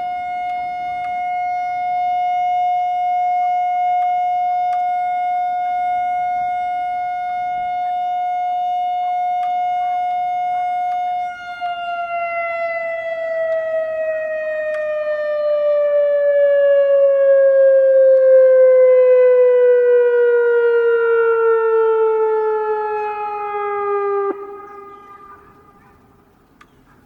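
Loudoun ES-4000 tornado siren holding one steady tone on its alert signal, then winding down from about a third of the way in: its pitch falls slowly and evenly for some twelve seconds, swelling in loudness along the way, before it cuts off abruptly, leaving a faint echo.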